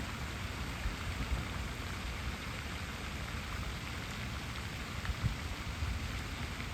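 Water running and splashing with a steady hiss.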